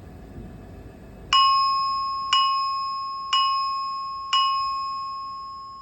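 Simplex 4100ES fire alarm voice evacuation system sounding its alert signal tone: four bell-like chime strikes about a second apart, starting about a second in, each ringing on and fading. The tone signals a report of an emergency in the building.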